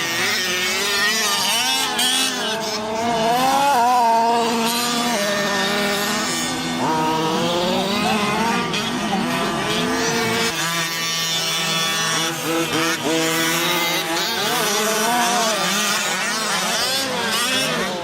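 Radio-controlled race cars' motors running, their pitch rising and falling as they rev, sometimes several at once.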